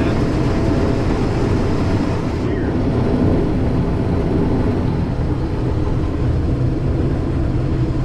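Combine harvester running steadily with a constant engine and machinery drone. The high hiss drops away abruptly about two and a half seconds in.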